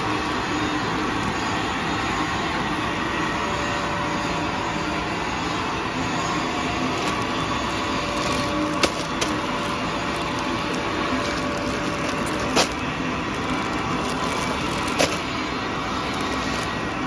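Paper straw production line and its straw packing machine running, a steady mechanical noise with a few sharp clicks in the second half.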